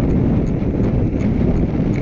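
Wind buffeting the microphone of a handlebar-mounted camera and tyre rumble from a road bike riding along at speed. A light tick repeats about four times a second underneath.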